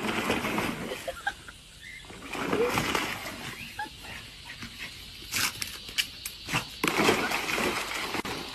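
A dog splashing in a plastic kiddie pool full of foamy soap water, in irregular bursts of sloshing and slapping water, with a quicker run of splashes toward the end.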